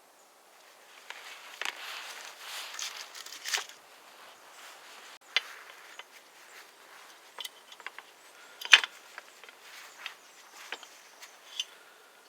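Handling noise from hand work: rustling and a scatter of small clicks and taps, the loudest a sharp click about nine seconds in.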